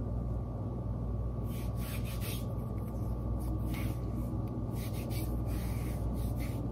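Stretchy fabric of an arm-shaper compression sleeve rubbing and brushing in a few short strokes as it is pulled up and smoothed along the arm, over a steady low hum.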